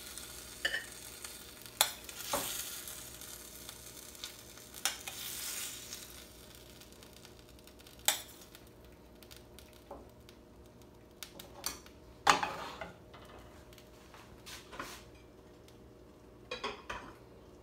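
A metal serving spoon scraping and knocking in a stainless steel skillet of shrimp in red sauce as they are spooned onto a plate, with the hot sauce sizzling softly at first. The sizzle fades after several seconds, leaving scattered clinks of the spoon, the loudest about twelve seconds in and a quick cluster near the end.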